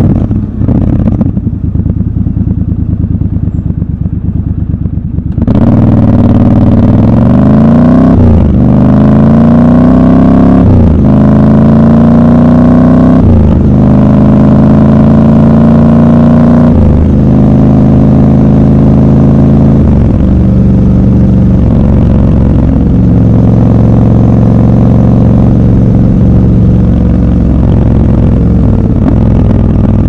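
Triumph Scrambler 1200 XC's parallel-twin engine running at low revs for about five seconds, then pulling hard, its pitch rising and breaking again and again as it shifts up through several gears. It then settles to a steady cruise.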